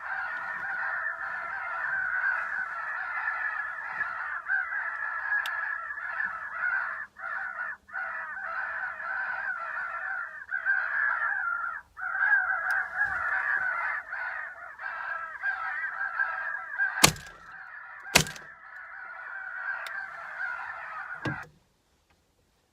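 Crow fight call from a FoxPro Spitfire electronic caller: a dense, continuous chorus of crow caws. Late on, two loud gunshots about a second apart, then the sound cuts off suddenly.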